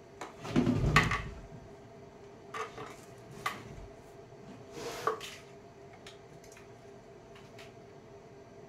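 A wooden drawer and its metal ball-bearing slides knock and clatter as the drawer is fitted into a workbench. There is a heavy thump and rattle about a second in, then three sharper knocks spread over the next few seconds.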